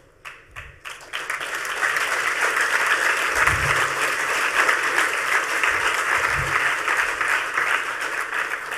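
Audience applauding: a few scattered claps, then dense, sustained clapping that builds within about a second and fades away near the end.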